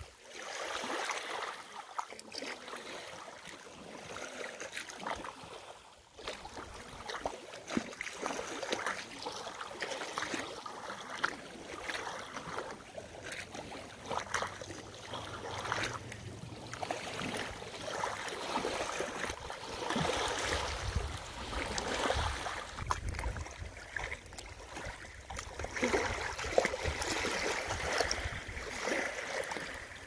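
Small lake waves lapping and splashing irregularly against a pebble beach and driftwood logs.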